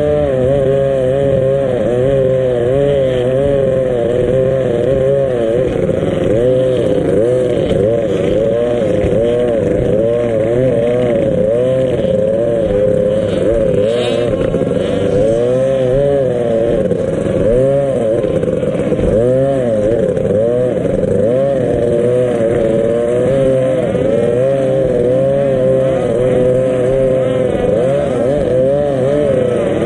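Powerboat engine running hard, its pitch rising and falling over and over as the revs swing.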